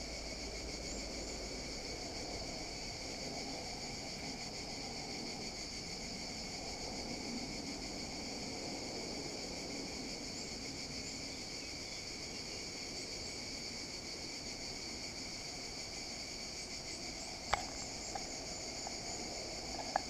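A steady, shrill chorus of insects that never lets up, with a few faint bird chirps now and then and one sharp click near the end.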